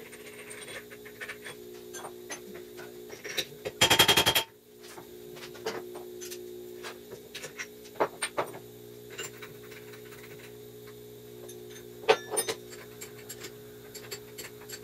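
Scattered metal clicks and taps as a quarter-inch four-flute ball end mill is fitted and tightened in the drill chuck of a small CNC mill, over a steady hum. About four seconds in there is a loud buzz lasting under a second.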